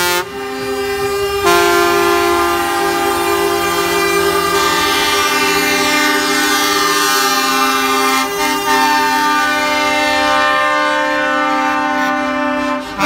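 Lorry air horns sounding loudly and without a break, several horns overlapping in a chord of steady tones that changes about a second and a half in.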